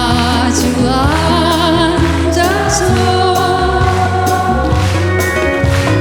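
Live folk-pop song: a female voice singing held notes with vibrato over band accompaniment, with a steady bass line and drum beats.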